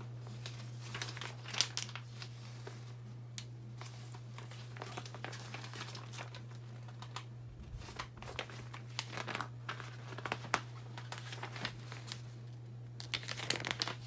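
Paper rustling and crinkling as the printed sheets of an instruction manual are handled and leafed through, in irregular rustles that come thickest near the start and near the end. A steady low hum runs underneath.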